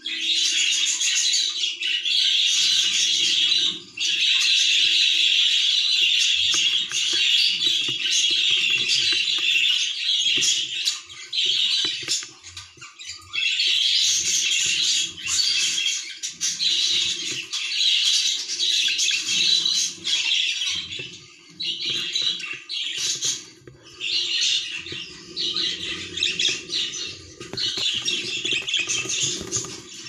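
Budgerigar chick calling with a harsh, high-pitched, raspy cry, almost without pause for the first dozen seconds and then in bursts of a second or two; this is the persistent begging call of a chick at weaning.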